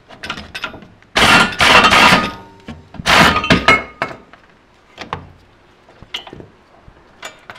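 Craftsman half-inch air impact wrench hammering in two loud bursts, each about a second long, loosening a front brake caliper mounting bracket bolt. Light metal clicks follow as the bolt is worked out.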